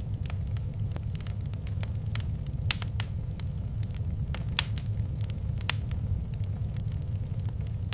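Wood fire burning in a fireplace: a steady low rumble of flames with scattered crackles and sharper pops, the loudest a few seconds in.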